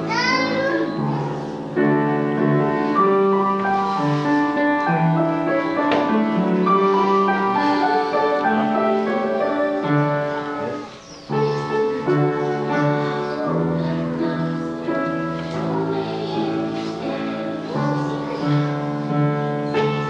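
Upright piano playing a song while young children sing along, with a brief pause about eleven seconds in.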